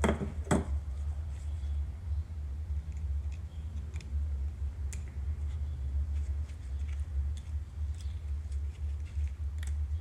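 Small metal parts from a Mazda RX-8 rotor clicking and clinking as the rotor is taken apart: two sharper knocks right at the start, then scattered light ticks over a steady low hum.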